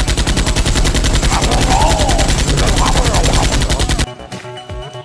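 Rapid automatic gunfire, a continuous burst of evenly spaced shots lasting about four seconds and stopping abruptly.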